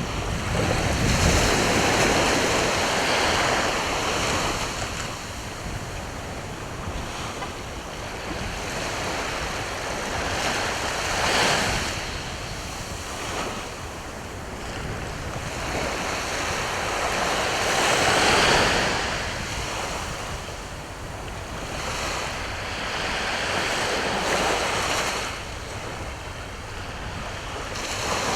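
Sea waves breaking and washing up the shore, the surf swelling and ebbing every several seconds, with the biggest surges about 11 and 18 seconds in. Wind rumbles on the microphone near the start.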